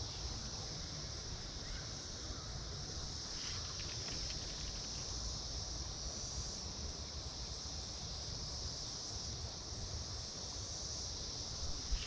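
Steady high-pitched chorus of Brood X periodical cicadas, over a low wind rumble.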